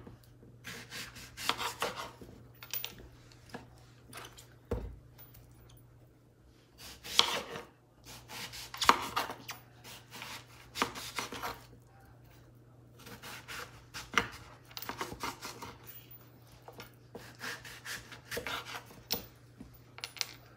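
Kitchen knife cutting raw peeled pumpkin into chunks on a wooden cutting board: irregular slicing strokes through the firm flesh, with the blade scraping and knocking on the board. The cutting pauses twice, a few seconds in and about halfway through.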